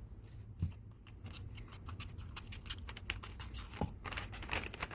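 Plastic bag crinkling and crackling in rapid irregular clicks as it is handled, with yogurt being mixed inside it.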